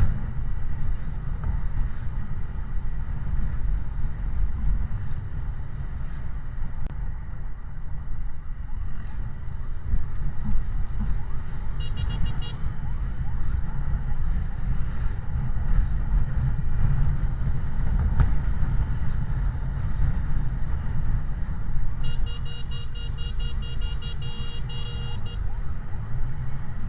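Steady low rumble of vehicles moving in road traffic. Two bursts of a fast-pulsing electronic siren cut through it, a brief one about twelve seconds in and a longer one of about three seconds near the end.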